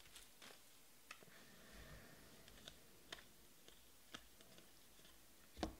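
Near silence broken by a handful of faint, sharp clicks of trading cards being flipped through by hand, with a louder click near the end.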